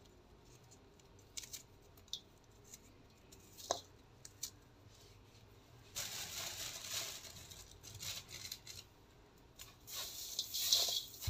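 Dry feed being worked by hand in a steel bowl: small crumbs of cottonseed cake being broken off and dropping in as faint scattered clicks, then a rustling from about halfway that grows louder near the end as the dry mix is stirred by hand.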